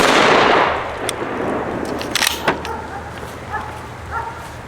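A 20-gauge pump-action shotgun firing an old, corroded shell: one blast right at the start whose report dies away in under a second. About two seconds later come a couple of sharp clacks from the pump action, and a dog barks twice near the end.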